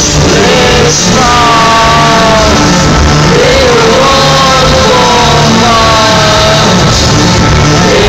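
Loud live rock band in an arena, heard from the crowd: a pulsing, repeating bass beat with a voice singing drawn-out lines over it.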